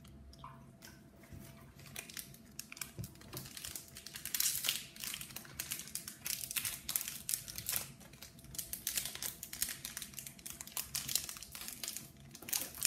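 Crinkling of a foil trading-card pack being worked open in the hands: a dense run of fine crackles that builds after a couple of seconds and keeps going.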